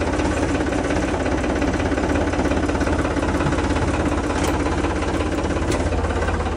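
Tractor diesel engine running steadily with a fast, even low beat and diesel clatter, heard from the driver's seat.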